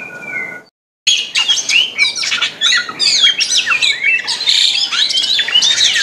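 Oriental magpie-robin (kacer) in full song: a fast, varied run of whistles, chirps and sweeping notes. It follows a brief held whistle that cuts off just before a second in.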